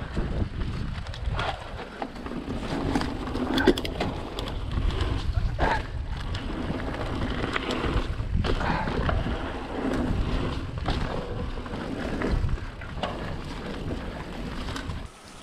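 Wind rumbling on the microphone during a mountain bike ride on a dirt trail, with scattered clicks and rattles from the bike.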